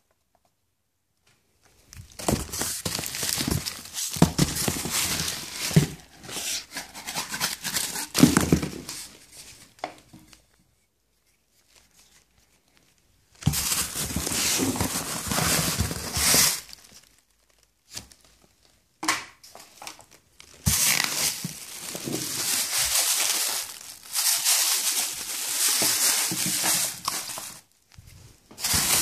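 Plastic packaging crinkling and rustling as it is handled by hand, in several bursts a few seconds long with short pauses between them, and a few knocks.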